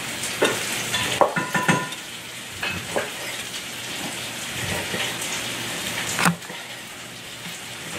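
Elk steaks sizzling in a cast-iron pan, a steady hiss, with scattered metal clinks and taps of a knife as a cooked steak is cut open; a sharper knock about six seconds in.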